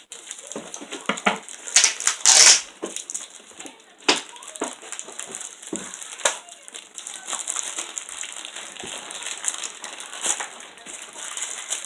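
A mail package being opened by hand: paper and plastic packaging crinkling, rustling and crunching in irregular bursts, loudest about two seconds in.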